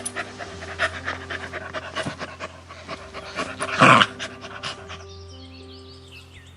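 A dog panting in quick, rapid breaths over background music, with one louder breath about four seconds in; the panting stops about five seconds in and the music carries on.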